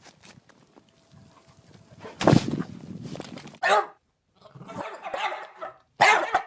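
A dog barking, a few short loud barks separated by pauses.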